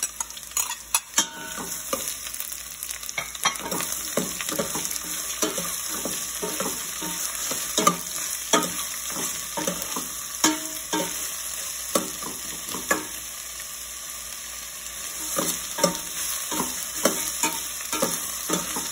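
Sliced red onions sizzling in hot oil in a stainless steel pot, with a metal spoon clicking and scraping against the pot again and again as they are stirred in.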